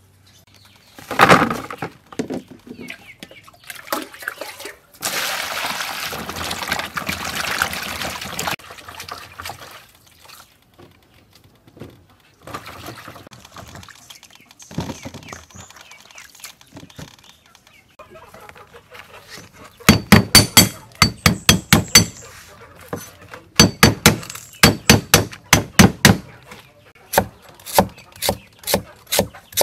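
Cleaver chopping on a wooden cutting board in quick, even strokes of about four a second, in three runs through the last third. Earlier there is a single knock and a few seconds of pouring water.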